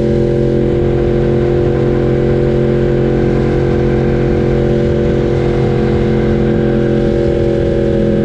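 Yamaha R1's crossplane inline-four engine running at a steady engine speed, its pitch holding level throughout, over a low rumble of wind and road.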